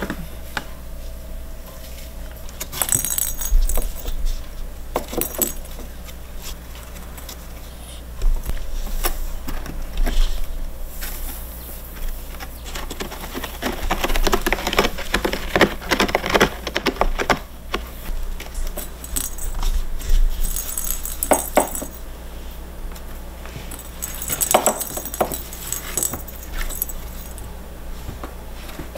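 Cats batting at a play-ball scratcher toy, knocking the balls about inside it and clawing at it, in irregular bursts of clicking and rattling with quieter stretches between.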